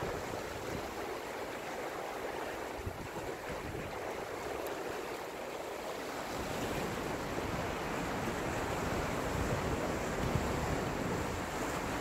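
Sea surf washing in and breaking against rocks, a steady rush of water that grows a little louder and deeper from about halfway through.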